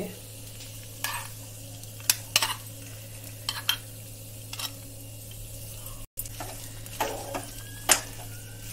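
Steel spoons clinking and scraping against a small steel pan and a black kadhai, a scattering of separate clinks, as ghee-roasted dry fruits are tipped into moong dal halwa and stirred through it, with hot ghee sizzling underneath.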